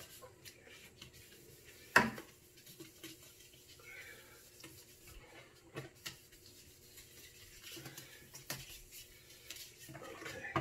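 Scattered light clicks and knocks of a plastic headlight being handled during hand sanding, with one sharp knock about two seconds in.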